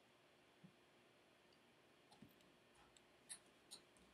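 A few faint, scattered clicks of a computer mouse against near-silent room tone.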